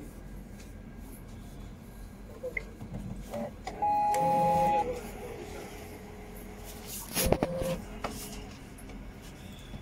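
Brother MFC-J3530DW inkjet printer starting a print-head cleaning cycle to clear clogged nozzles. It gives a loud beep lasting about a second, a little under four seconds in, followed by faint mechanical running and a sharp clatter of clicks a few seconds later as the cleaning mechanism works.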